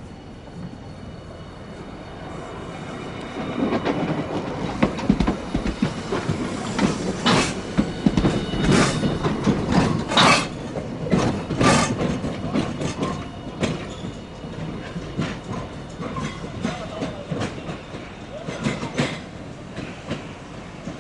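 Hiroshima Electric Railway streetcar running past, its wheels clacking over the track. It grows louder a few seconds in, is loudest with a run of sharp clacks through the middle, then fades.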